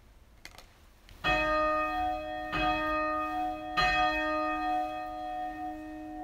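A sanctus bell struck three times, about a second and a quarter apart, each strike ringing on with a long, slowly fading tone. It is rung at the consecration, as the consecrated bread is raised.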